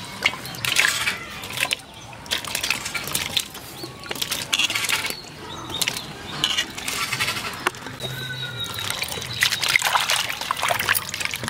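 Water splashing and sloshing in a steel bowl as blanched cauliflower florets are rinsed by hand in cold water, in irregular splashes with an occasional clink against the bowl.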